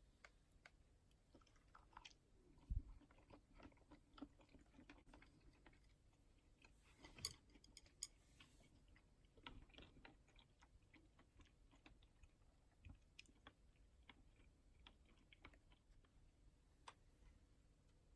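Faint chewing with many small scattered clicks and a few louder knocks about three, seven and eight seconds in: someone eating.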